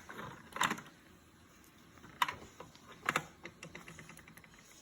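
Plastic toy figures being handled: scattered light clicks and taps of plastic on plastic, a few sharper ones about two and three seconds in.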